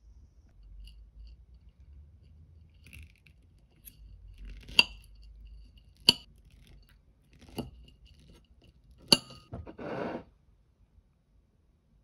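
Steel knife and fork clinking and scraping against a ceramic plate while slicing a peach: four sharp clinks about a second and a half apart. A short soft hiss of noise follows near the end.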